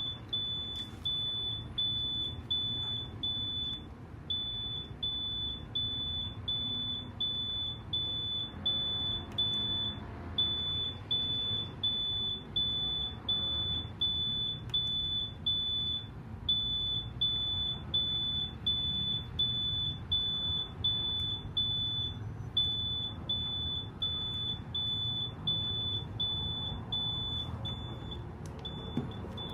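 iPhone speaker giving short, high, single-pitched beeps about two a second, in runs broken by a short pause about every six seconds. This is the unexplained sound the phone makes after an iOS update. A steady low rumble runs underneath.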